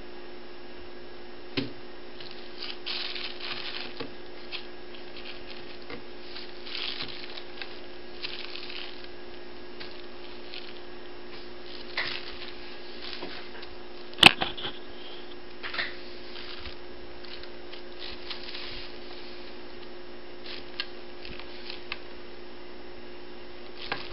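Kitten's paws and claws scratching and rustling on paper as it bats at a hand, with scattered light taps and one sharp knock about fourteen seconds in, over a steady hum.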